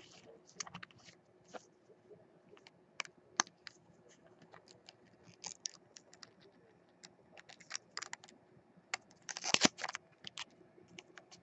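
Foil trading cards being handled by hand: scattered light clicks and short scrapes of card sliding against card, with a louder cluster of rustling about nine and a half seconds in.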